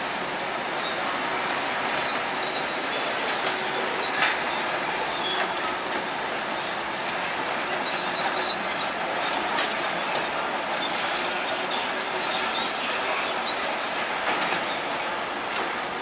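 Crawler bulldozer working, its steel tracks squealing and clanking, with a sharp clank about four seconds in.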